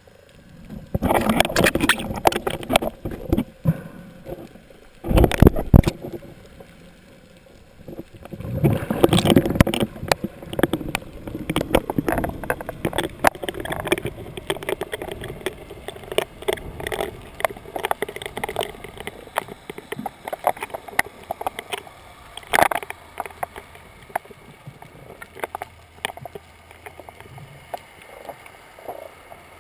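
Water sloshing and rushing against an underwater camera's housing just below the surface, in three loud bursts over the first ten seconds, then a steady crackle of small clicks, knocks and bubbles.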